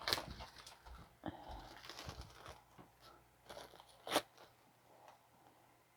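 Faint crinkling and rustling of packaging as a tarot deck and its guidebook are handled and unwrapped, with a sharper click about four seconds in.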